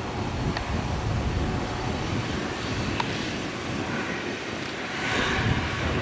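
Airbus A320neo's Pratt & Whitney PW1100G geared turbofan engines running at low thrust as the airliner taxis slowly along the runway: a steady low rumble and hiss.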